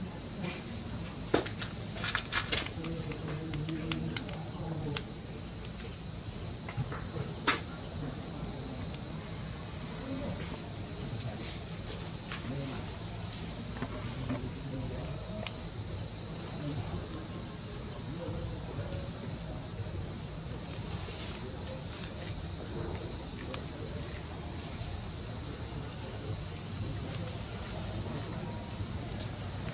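Steady high-pitched buzzing of an insect chorus, unbroken throughout, with two sharp clicks in the first several seconds.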